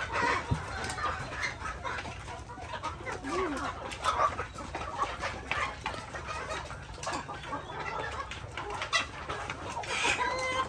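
A flock of domestic chickens clucking, with short calls scattered throughout.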